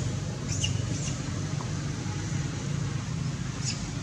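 A baby monkey gives a few brief high squeaks, about half a second in, about a second in and again near the end, over a steady low hum.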